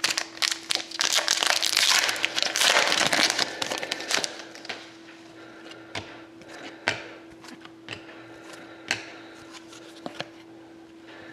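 Wrapper of a Panini Select hockey card pack crinkling as it is torn open, for about four seconds. Then come a few separate light clicks as the cards are handled and flipped.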